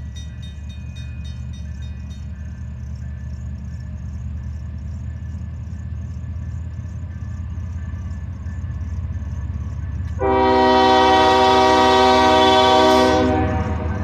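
Norfolk Southern diesel freight locomotive approaching, its engine rumble growing slowly louder. About ten seconds in, the locomotive's horn sounds one long multi-tone blast of about three seconds, the loudest sound here.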